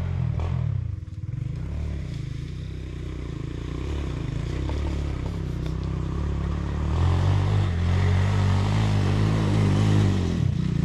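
Dirt bike engine running and revving, with a low pulsing drone that swells louder and rougher about seven seconds in as the throttle opens.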